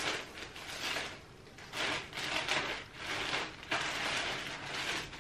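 Thin plastic clothing bag crinkling and rustling in a run of irregular bursts as it is opened and a knit sweater is pulled out of it.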